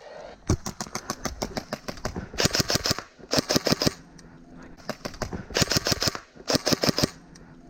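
Airsoft guns firing in rapid full-auto bursts: a few scattered shots at first, then four short bursts of quick clicking shots, each about half a second long.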